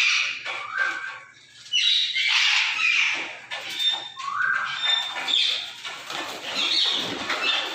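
Several parrots calling over each other, harsh overlapping calls that ease briefly about a second in and then run on almost without a break.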